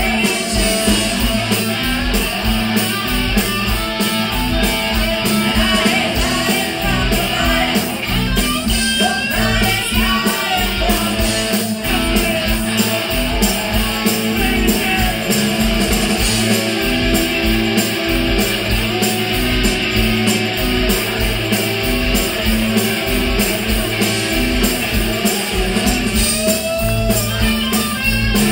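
Live rock band playing: electric guitars over bass and drums keeping a steady beat.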